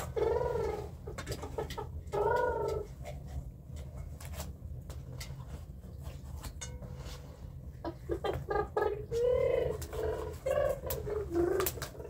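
A cat meowing: two short meows in the first three seconds, then a run of several meows from about eight seconds in. Scattered clicks and knocks sound throughout.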